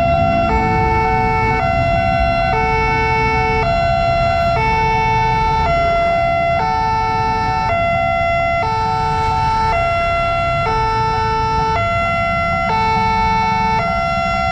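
Railway level-crossing warning siren of the Nippon Signal type sounding a steady two-tone hi-lo alarm, switching tone about once a second, over the low rumble of passing motorbikes and cars. It warns that a train is coming and the crossing barriers are closing.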